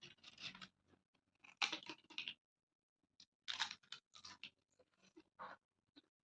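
A person chewing and crunching food with the mouth, in irregular short bursts with pauses between.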